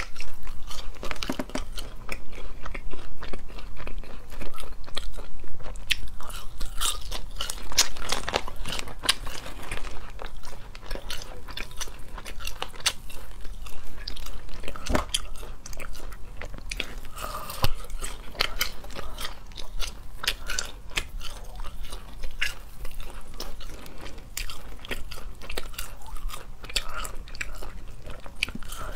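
Close-miked biting and chewing of latiao, Chinese spicy gluten strips: a dense run of small clicks and crackles.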